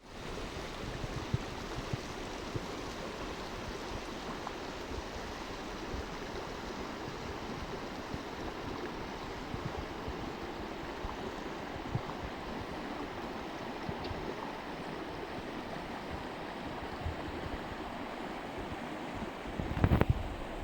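Water flowing steadily with an even rushing sound. There are a few soft low thumps, and a loud low buffet hits the microphone just before the end.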